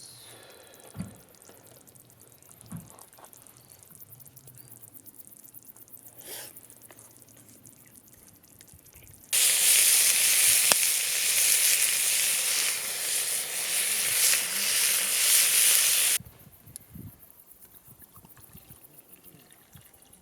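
A loud, steady hiss, like sizzling, starts suddenly about nine seconds in and cuts off about seven seconds later. Before it come a few faint knocks.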